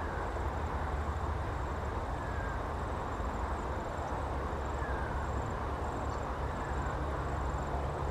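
Steady outdoor background noise with a constant low rumble, a few faint short high chirps, and a faint high ticking.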